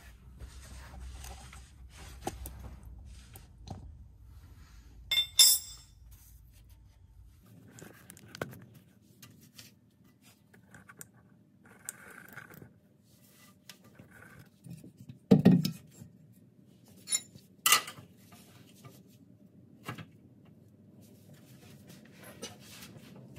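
Metal hand tools clinking and clattering as a socket wrench is handled and fitted onto a trailer's axle U-bolt nuts, with a few louder sharp metal clanks scattered through.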